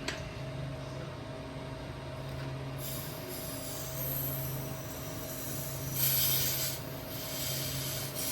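Two short hisses of R-134a refrigerant vented from a charging hose to purge the air from it, the first about three seconds in and a louder one about six seconds in. A steady low hum runs underneath.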